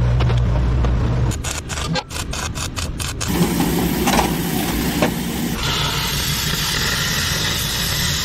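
Construction-site machinery and tool noise in abrupt cuts: a diesel engine running steadily and low, then a run of sharp knocks about a second and a half in, then a steady hissing noise through the second half.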